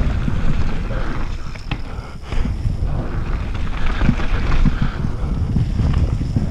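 Wind buffeting the microphone of a riding mountain biker's camera, over the rough rumble of knobby tyres rolling fast on a dirt trail. The rumble drops briefly about two seconds in and then comes back.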